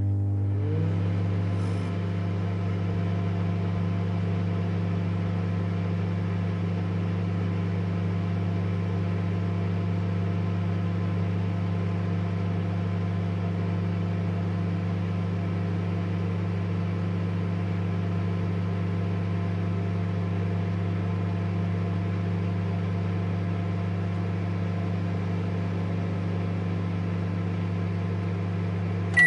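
Microwave oven running: a steady electrical hum with a low drone and fan whir, settling in during the first second or two and cutting off suddenly at the very end as the cycle finishes.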